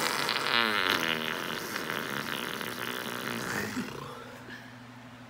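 A raspberry blown against skin: a lip buzz that starts loud, wavers in pitch, and fades away about four seconds in.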